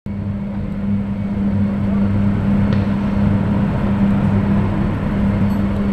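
A machine's steady low hum, even and unbroken throughout.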